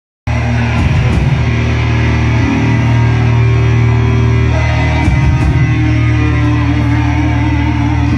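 Live thrash metal band playing at full volume: distorted electric guitars, bass and drums, cutting in abruptly just after the start.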